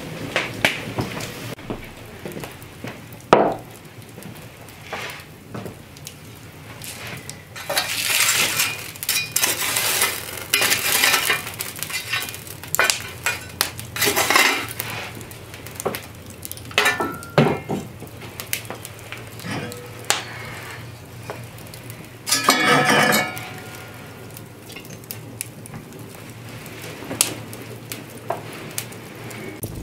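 Clinks, knocks and scrapes of metal cookware and fire irons at an open wood fire, as coals are raked and an iron skillet is set over the embers. A longer, louder rattle comes about three-quarters of the way through.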